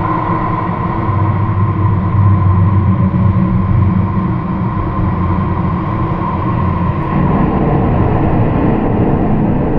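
Steel bridge structure picked up by a contact microphone, vibrating under passing traffic: a continuous heavy rumble with a steady metallic ringing hum above it. The rumble changes character about seven seconds in.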